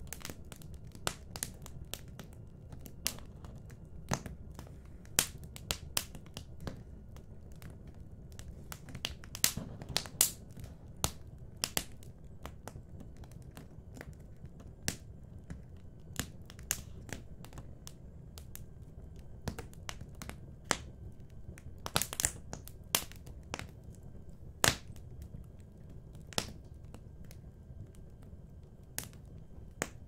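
Wood fire in a fireplace crackling: irregular sharp pops and snaps, some in quick clusters, over a low steady rumble.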